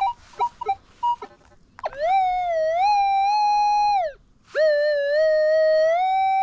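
Metal detector signalling a target: a few short beeps, then two long electronic tones. Each tone swoops up at the start, wavers, then holds a steady pitch. These are the sustained pinpointing tones used to centre on a high-tone target.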